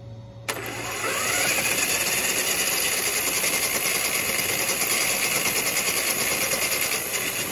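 Traxxas E-Revo 2.0's brushless electric motor and drivetrain suddenly spinning up about half a second in. The whine rises over the next second and then holds steady at high speed, with the wheels spinning free in the air to fling water out of the waterlogged tires through their vent holes.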